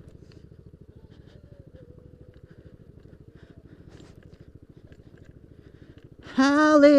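Yamaha Aerox scooter's single-cylinder engine running with a quiet, fast, even low putter. Near the end a man's voice breaks in loudly with a drawn-out sung call.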